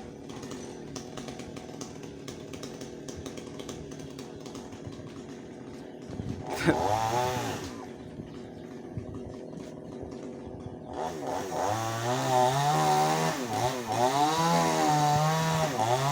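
Chainsaw idling, revved briefly about six and a half seconds in, then from about eleven seconds run at high revs with the pitch repeatedly rising and falling as it cuts into sengon wood.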